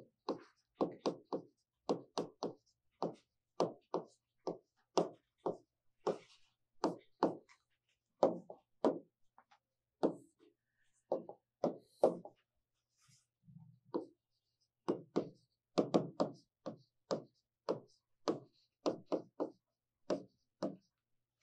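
Pen strokes tapping and knocking on a writing board as a line of text is written, about two or three short taps a second, with a brief lull a little past the middle.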